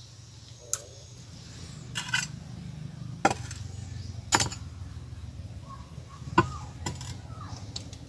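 Laboratory glassware clinking and knocking on a tabletop as flasks and beakers are handled and set down: six or seven short, sharp knocks spread through, over a steady low hum.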